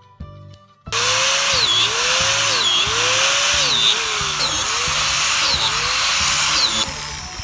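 High-speed power drill boring inoculation holes into a hardwood log. It starts about a second in and cuts off shortly before the end, its pitch sagging under load and recovering about once a second.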